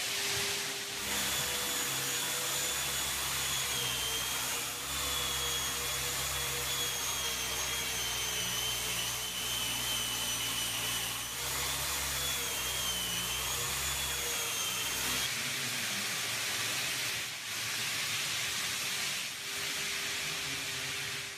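A dust extractor runs with a steady rush, and an electric hand-held sander with a dust hose whines over it as it sands a wooden floor. The whine wavers a little in pitch and stops about fifteen seconds in, leaving only the extractor's rush.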